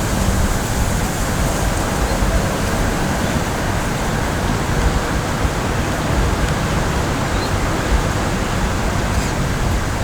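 Strong wind rushing across the microphone: a steady, loud hiss with a heavy, gusting low rumble.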